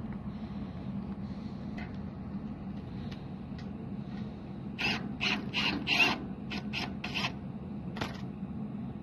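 A temporary licence plate being fastened to a car-hauler trailer's plate holder: a quick run of about seven short rasping, ratchet-like pulls about five to seven seconds in, then one more near the end, over a steady low hum.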